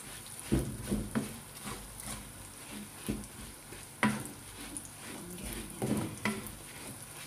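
Wooden spatula stirring and scraping fried garlic and chili flakes around a frying pan, over a low sizzle of hot oil. Sharp knocks of the spatula against the pan come at irregular moments; the loudest is about four seconds in.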